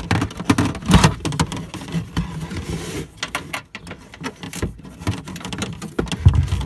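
Small 10 mm hand ratchet clicking irregularly as it undoes a nut holding the rear light cluster, with rustling of the boot's carpet lining and knocks from handling.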